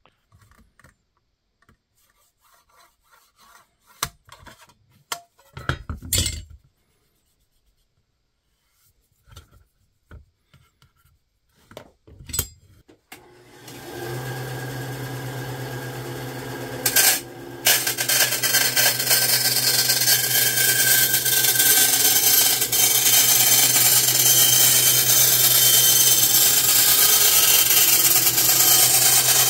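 Light clicks and taps of pencil and steel square on a plate of thin sheet steel, then about 13 seconds in a bandsaw starts with a steady motor hum. From about 18 seconds its blade cuts the thin steel with a loud, steady grinding noise.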